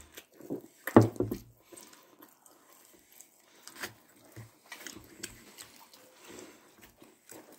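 Close-up chewing and biting of pizza crust: irregular crunchy, wet mouth noises, with one louder noise about a second in.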